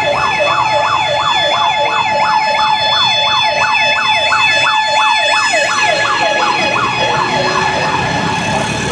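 Fire truck siren on a fast yelp, about three or four falling sweeps a second, with a steady held tone sounding alongside. The yelp fades out near the end.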